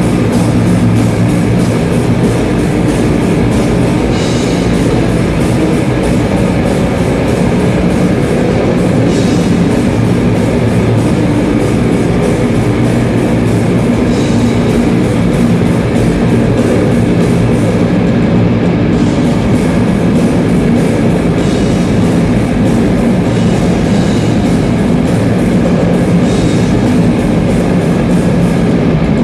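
Death metal band playing at full volume: distorted electric guitars, bass and drums in a dense, unbroken wall of sound.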